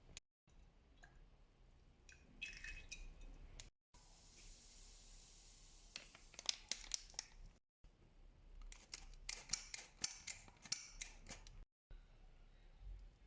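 Faint household handling sounds in a few short edited clips: scattered light clicks and taps, a couple of seconds of soft hiss, then quick runs of sharp clicks and snips.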